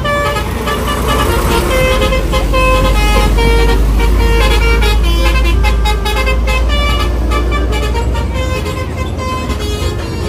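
A bus's telolet horn sounding a string of short, changing musical notes over the low, steady rumble of a large vehicle's engine, which eases a little after about six seconds.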